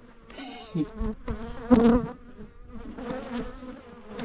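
Bees buzzing close around a wild hive hanging under a rock overhang: a steady droning hum that swells louder for a moment a little under two seconds in as bees pass near.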